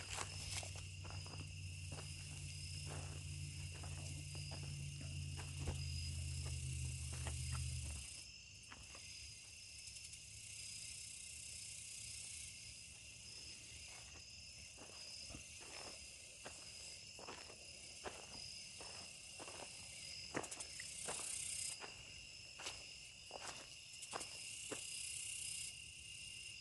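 Insects along a creek trilling steadily in a high-pitched evening chorus, with scattered faint clicks. A low hum underneath stops about eight seconds in.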